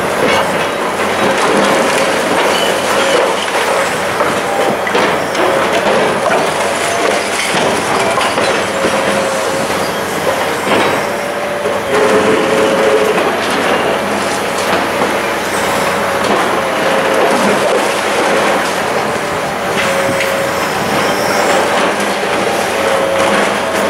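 High-reach demolition excavator's hydraulic crusher jaw biting through concrete floors and walls: continuous crunching and clattering of breaking concrete and falling rubble, with a mid-pitched tone that comes and goes.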